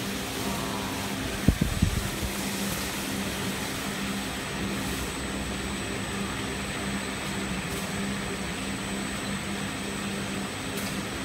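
Steady hum of running factory machinery with a few steady tones through it, and a short cluster of knocks about a second and a half in.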